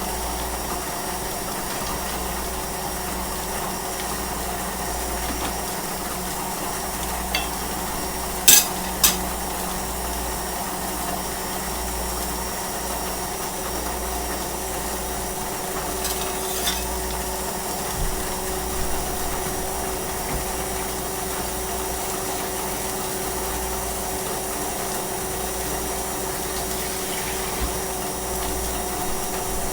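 Electric mixer motor running steadily, mixing a milkshake. A few sharp clinks of dishes or utensils sound over it, two close together about a third of the way in.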